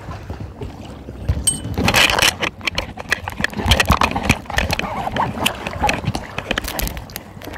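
Kayak paddles splashing and knocking in shallow water, with a busy run of sharp splashes and clacks from about two seconds in.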